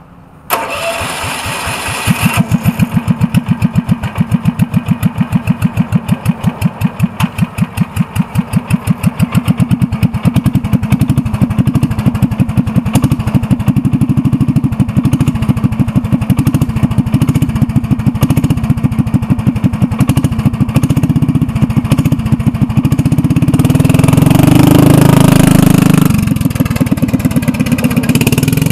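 Kawasaki 341 cc, 8.5 hp industrial engine on a Commuter TE390 three-wheeler with a straight-pipe exhaust, cranked for about two seconds before it catches. It then runs kind of loud with distinct, evenly spaced exhaust pulses, revs up for a couple of seconds near the end, and settles back as the trike pulls away.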